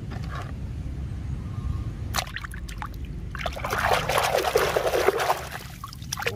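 A plastic toy being swished by hand through a basin of muddy water, splashing and sloshing, loudest in the second half. A few sharp clicks come about two seconds in, before the splashing.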